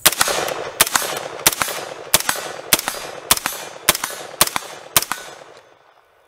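A 3D-printed AR-15 semi-automatic rifle fired about a dozen times in a quick, uneven string, each shot ringing out briefly. The firing stops about five seconds in. The rifle is cycling with an Aero Precision bolt carrier group and working well.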